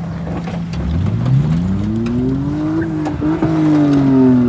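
Demolition-derby car engines running hard: one engine revs up steeply about a second in, holds high, then slowly eases off, over another engine running steadily. A few short knocks of car bodies come near the middle.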